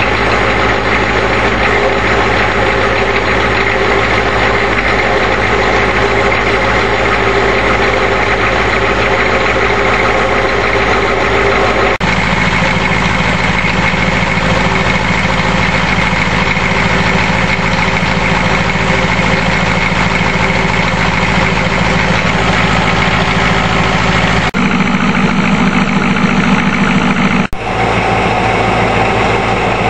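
A 1985 Ford E350's 6.9L International IDI diesel V8 idling cold on freshly rebuilt injectors, with a steady diesel clatter. The owner finds it a little too clattery and takes this for retarded injection timing. The sound changes abruptly about 12 and 25 seconds in, heard first at the tailpipe, then at the open engine cover inside the cab, then from outside the van.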